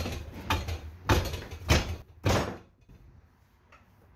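Five thumps, about two a second, as a new motorcycle tire is shoved down by hand over its wheel rim on a manual tire changer, rubber knocking against rim and stand; they stop about halfway through.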